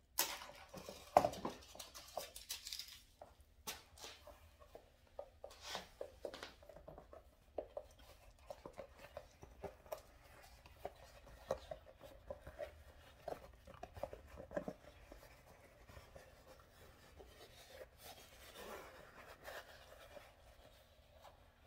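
Hands handling new white foam clogs and pulling out their paper stuffing: crinkling and rustling with many light taps and clicks, the loudest about a second in.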